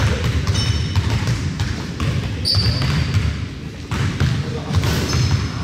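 Basketball game play: a ball bouncing on the court in sharp repeated thumps, with short high sneaker squeaks now and then over a steady hum of the gym and players' voices.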